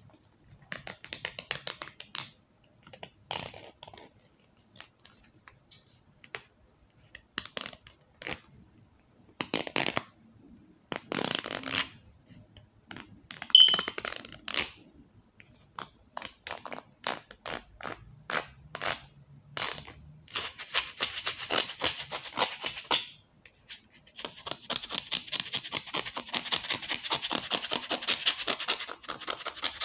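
ASMR tapping and scratching on objects: scattered taps and short scratchy strokes, then from about two-thirds of the way in a fast, continuous run of tapping and scratching with a short pause.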